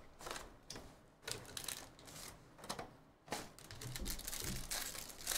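A trading-card hobby box and a card pack being opened by hand: irregular short bursts of cardboard scraping and wrapper crinkling and tearing.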